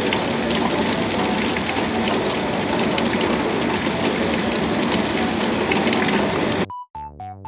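Heavy downpour: a loud, steady hiss of rain. About six and a half seconds in it cuts off suddenly and short plucked synthesizer notes begin.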